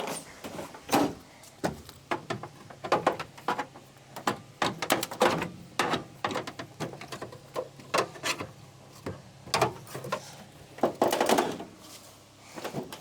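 Irregular knocks, clicks and clatter of parts being worked loose and handled during a car teardown, some strikes sharper and louder than others.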